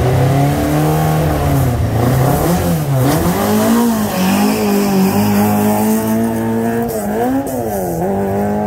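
Race car engine revved hard and held at high revs, its pitch dipping sharply and climbing back twice.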